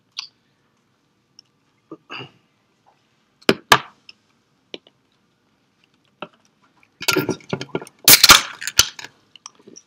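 Clinks, knocks and rattles of a metal drink can being handled close to a handheld microphone: two sharp knocks about three and a half seconds in, scattered clicks, then a dense cluster of clinks and rattles near the end, the loudest part.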